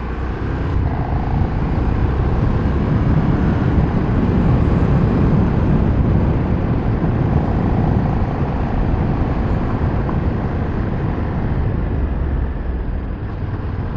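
Riding on a KTM 1390 Super Duke R: a steady, heavy rush of wind noise on the microphone with the bike's V-twin engine running underneath. The sound grows louder over the first few seconds and eases slightly near the end.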